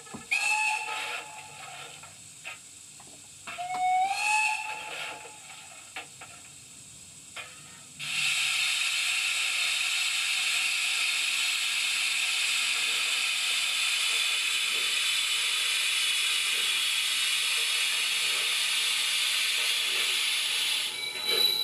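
Sound decoder of a model steam tank locomotive, playing through its small onboard speaker. It gives two short steam-whistle toots about three seconds apart, the second rising slightly in pitch, with light clicks between them. From about eight seconds in comes a loud, steady hiss of steam, which stops near the end.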